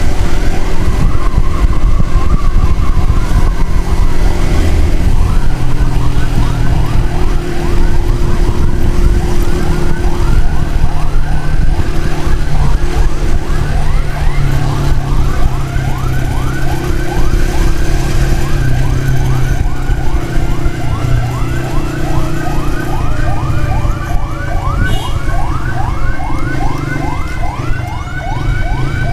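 Emergency siren in a fast yelp, about four rising sweeps a second, over heavy wind and road rush from riding; a second, slower siren tone joins near the end.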